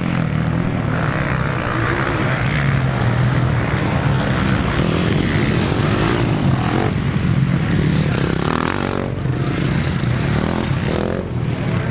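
Motocross bikes of the 250–450 cc class running loud through a dirt-track corner, engines revving up and easing off as one rider and then another pass.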